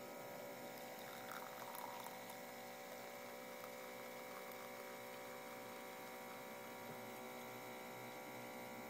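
Electric coffee maker humming steadily while it brews.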